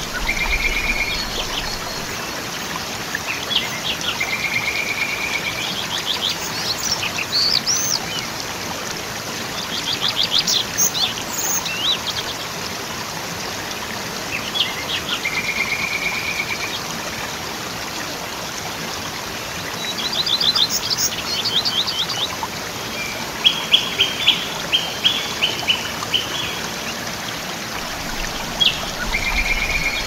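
A waterfall rushing steadily, with several birds calling over it: short whistled notes now and then, fast trills, and a quick run of sharp chips about two-thirds of the way through.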